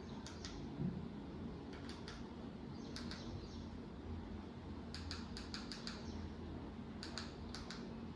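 Faint, sharp clicks in small groups, about a dozen in all, from the buttons of a smart monitor's remote control being pressed to move through menus, over a low steady hum.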